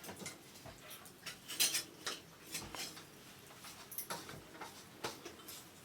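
Scattered light clicks and taps of kitchen dishes and utensils being handled, a few small knocks spread irregularly through a quiet room.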